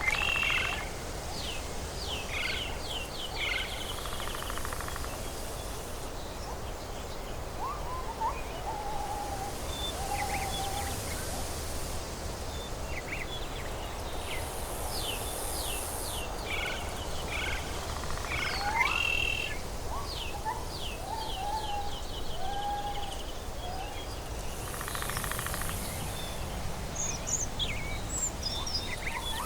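Tropical forest ambience: several birds calling with short chirps and whistled notes throughout, a high insect buzz that swells in and fades out every few seconds, over a steady low rumble.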